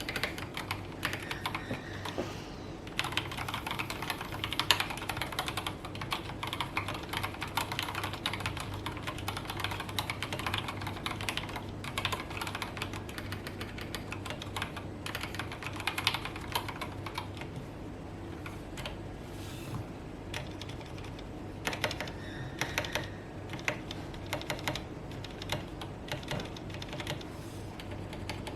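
Continuous typing on an Akko 3108 mechanical keyboard with stock yellow Gateron linear switches and OSA-profile doubleshot keycaps: a dense, uneven run of keystroke clicks, with some louder bursts of typing.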